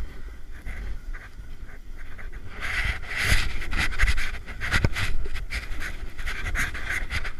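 Snowboard sliding and scraping over packed snow on a downhill run, in rough surges from about two and a half seconds in, under a low rumble, with the rider breathing hard.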